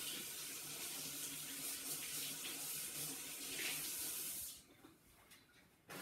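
Water running from a tap into a sink while hands are washed, with a faint low hum alongside. The tap is shut off about four and a half seconds in and the running stops abruptly.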